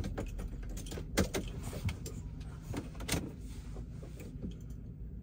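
Semi-truck engine idling, heard from inside the cab as a steady low rumble, with a few short knocks and clicks, the loudest about a second in and again around three seconds in.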